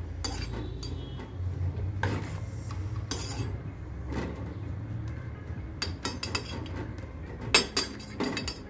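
A spatula scraping and knocking against a stainless steel pot while stirring a thick mix of cooked green gram and chopped raw-banana peel. The knocks come at irregular moments, with the loudest cluster near the end, over a low steady hum.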